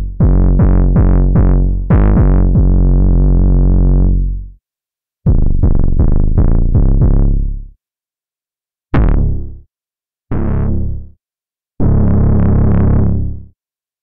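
GForce Axxess software synthesizer playing a bass preset in short phrases. It opens with a run of quick repeated bass notes, about four a second, and a held note that dies away about four seconds in. After gaps come another quick run, two short single notes and a last longer note.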